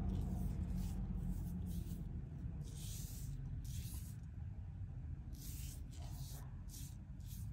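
Foam paint brush stroking paint onto a wooden door frame: about a dozen short, irregular swishes, over a steady low rumble.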